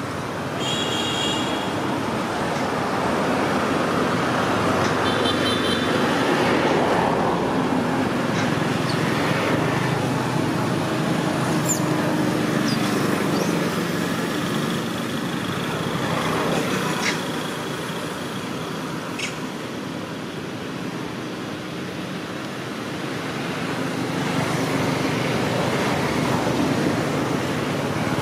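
Steady road traffic noise from passing vehicles, swelling and easing, with a few brief high chirps near the start.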